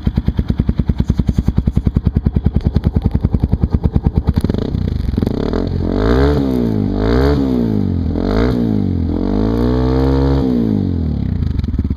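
2008 Yamaha XT250's single-cylinder four-stroke engine through an FMF Powercore 4 slip-on exhaust, loud. It idles with an even beat, then from about four seconds in it is revved about five times, the last rev held longer, before it drops back to idle near the end.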